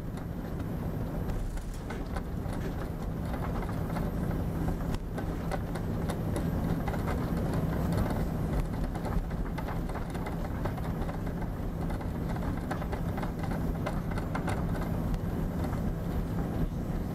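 Cabin sound of an Airbus A340-300 taxiing: a steady rumble from its CFM56 engines at idle and its wheels rolling on the apron concrete, with a constant low hum and many small knocks and rattles.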